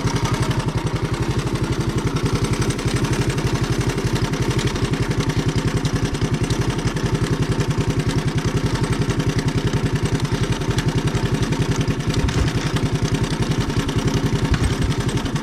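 ATV engine idling steadily with an even, rapid pulse.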